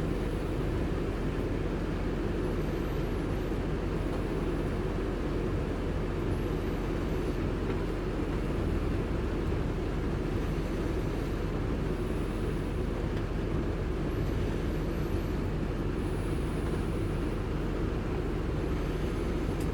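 Steady low rumble of a car's engine and road noise heard from inside the cabin, in slow traffic, with a faint high squeak about every two seconds.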